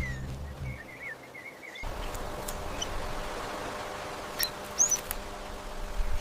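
Small birds chirping: a quick run of short, wavering chirps, then an outdoor background hiss with a few scattered chirps, one a sweeping call about five seconds in. The background changes abruptly about two seconds in.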